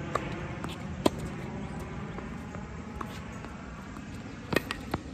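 Tennis ball struck by rackets in a rally: a faint serve hit at the start, then sharp pops about a second in, faintly near three seconds and again about four and a half seconds in, the near hits louder than the far ones. Steady low outdoor background noise underneath.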